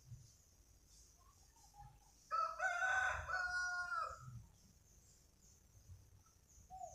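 A rooster crowing once: a single pitched call of about two seconds, starting a little over two seconds in, over faint high chirping in the background.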